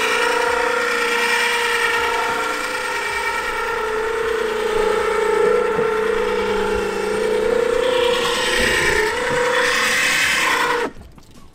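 Harbor Freight 2500 lb utility electric winch motor running under load, a steady whine as it winds in the tow rope and hauls a kayak up onto a truck roof rack. It cuts off suddenly near the end.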